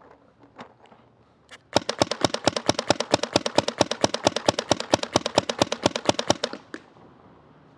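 GOG eNMEy fully mechanical paintball marker fired rapidly, about eight shots a second, starting about two seconds in and stopping shortly before the end.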